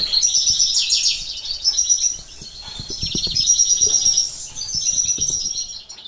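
Caged small finches, a male European serin and a female canary, twittering in a rapid, high, jingling stream of notes that eases off briefly about two seconds in.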